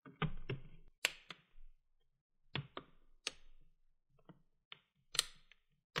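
The bottom cover of an HP x360 14 laptop being pressed down along its edges and corners, its clips clicking into place on the chassis: about a dozen sharp clicks, irregularly spaced, some in quick pairs.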